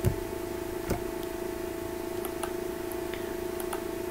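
Two computer mouse clicks about a second apart, then a few fainter ticks, over a steady background hum.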